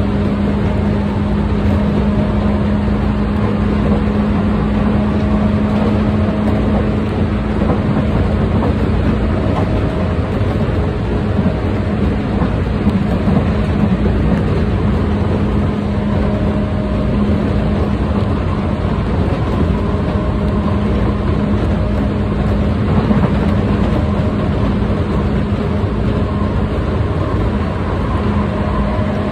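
Tokyu 8500-series electric train running at steady speed, heard from inside the car: a continuous rumble of wheels on rail with a steady motor hum.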